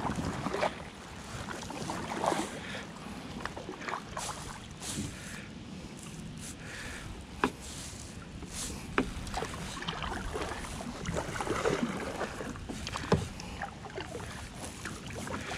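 Kayak paddle strokes on calm water from a Native Watercraft Manta Ray Angler 12 XT sit-on-top kayak: water splashing and dripping off the blades, with a few sharp clicks.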